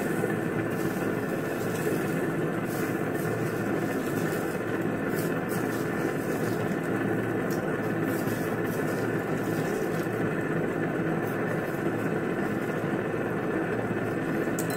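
Pot of water at a rolling boil on a gas stove: a steady, even rushing noise with a faint hum, and a few light ticks.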